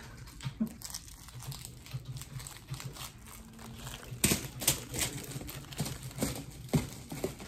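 Paper exam-table liner crinkling and rustling as a baby shifts on it, with a few louder, sharper crinkles after about four seconds.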